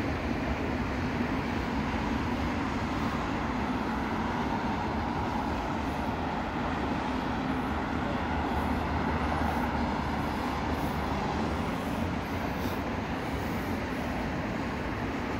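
Steady, even rumble of distant freeway traffic.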